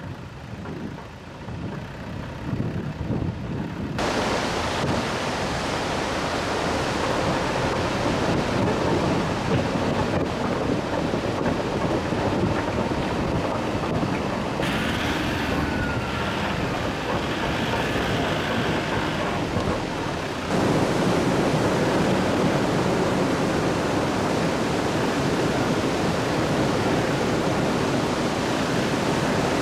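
Rushing roar of a swollen, fast river in spate: a dense, steady noise that jumps abruptly louder about four seconds in and again about twenty seconds in.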